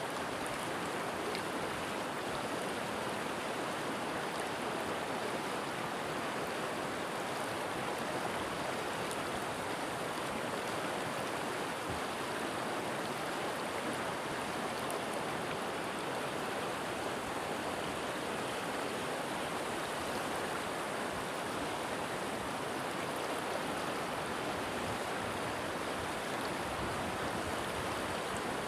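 River water flowing and rushing steadily over rocks, an even, unbroken rush with no change in level.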